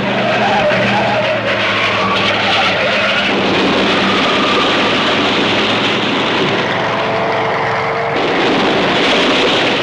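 Stock car engines at race speed with skidding tyres, one loud, steady wash of noise without breaks.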